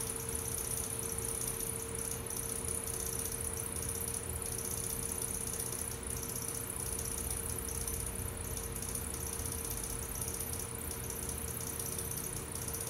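Brent electric potter's wheel running at a steady speed with a constant motor hum, and wet clay swishing under the potter's hands as he throws a small cup.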